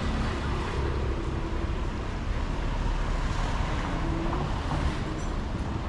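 Steady outdoor noise with a low wind rumble on the microphone, the kind of mixed surf and traffic roar heard walking along a beach road.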